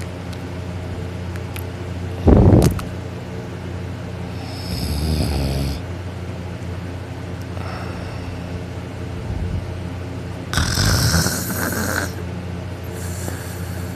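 A person snoring with their mouth open, in irregular snores several seconds apart, the loudest about two seconds in, over a steady low hum.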